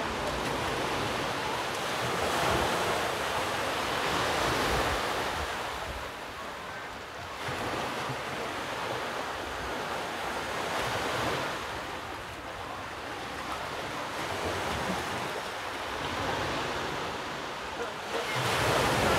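Ocean waves breaking and washing on the shore, rising and falling in slow surges every few seconds, with wind buffeting the microphone.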